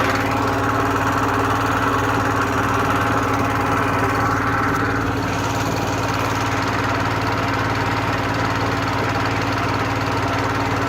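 A boat engine running steadily at an even speed, with a constant low drone.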